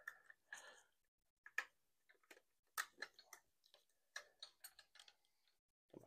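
Faint, scattered light clicks and ticks, irregularly spaced, from small metal parts and hand tools being handled while a screw is fitted during bicycle assembly.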